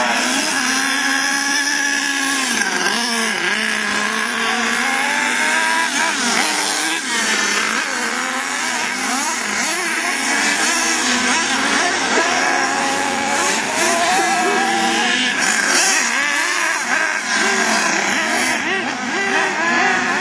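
Several radio-controlled racing trucks' motors whining, several at once, the pitch climbing and dropping over and over as they accelerate and slow round the track.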